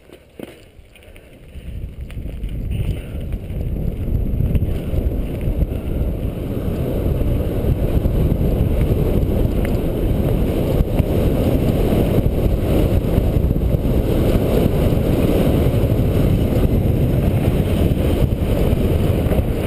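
Wind buffeting a handlebar-mounted GoPro's microphone, mixed with bicycle tyres rumbling over a dirt trail during a ride; the low rushing noise grows louder over the first few seconds, then holds steady.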